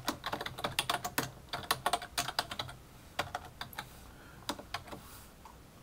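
Keystrokes on a computer keyboard typing a short phrase: a quick run of clicks for about three and a half seconds, then a few last taps about four and a half seconds in.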